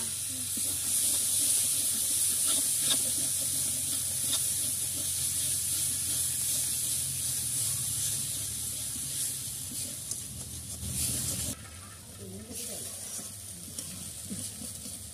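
Pieces of Bombay duck (lote fish) sizzling as they fry in a metal kadai of mustard oil and spice masala, stirred with occasional light scrapes and taps. The sizzle falls away sharply about eleven and a half seconds in.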